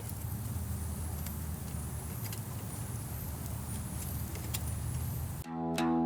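Steady low rumble with a few faint ticks. About five and a half seconds in, acoustic guitar music cuts in.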